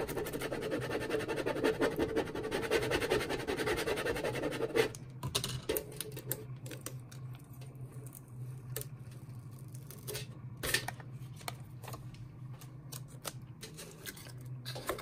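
Plastic scraper rubbed briskly back and forth over transfer tape on a vinyl decal, a rapid scratchy rubbing that stops about five seconds in. After it come a few light crackles and taps as the tape and vinyl are peeled from the backing, over a low steady hum.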